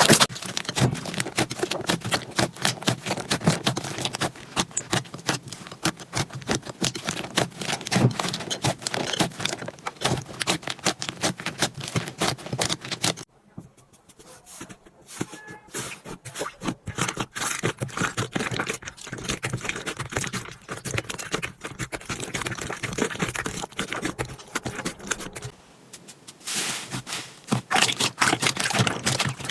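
Slime being squeezed, poked and pressed by hand, giving dense runs of small crackling, popping clicks. The sound changes abruptly about 13 s and 26 s in, and the middle stretch is quieter and sparser.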